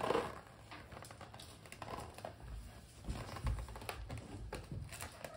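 Light handling noise from a rubber balloon held in a baby's hands: scattered faint taps and rubbing, with a few soft low thumps.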